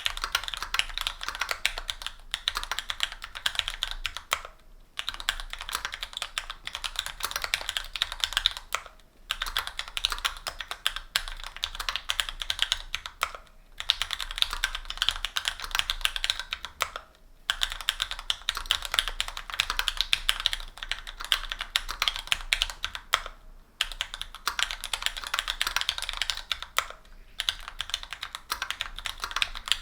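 Continuous typing on a Linworks Special Dolphin 2021 mechanical keyboard with stock, unlubed Gateron Pro Brown 45g tactile switches, an aluminium plate, a foam sponge and GMK keycaps. It is a dense stream of keystrokes, broken by brief pauses every few seconds.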